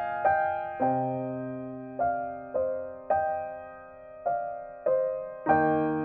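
Background piano music: a slow melody of single notes, each struck and left to ring out, over held low notes.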